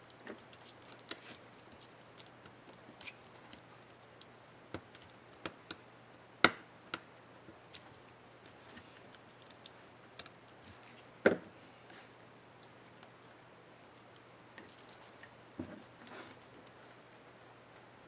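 Small, sharp plastic clicks and taps as a small screwdriver and fingers work the space-bar retainer clips of an HP Mini 5101 laptop keyboard, irregularly spaced, with two louder snaps, one about six seconds in and one about eleven seconds in.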